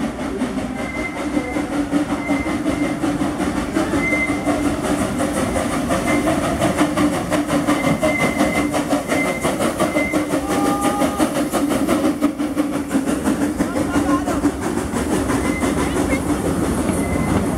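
Steam train passing close by: the locomotive running, then the passenger cars rolling past with a steady clickety-clack from the wheels.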